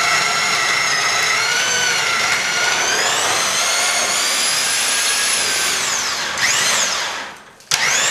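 Milwaukee Super Hog right-angle drill turning a self-feeding Greenlee Nail Eater II bit up into wooden framing: a loud, steady motor whine. Its pitch rises a few seconds in and sags about six seconds in, then the drill stops briefly and starts up again near the end.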